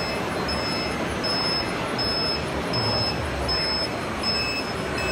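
Busy exhibition-hall background noise with a high electronic beep repeating evenly about every three-quarters of a second, in the pattern of a vehicle reversing alarm.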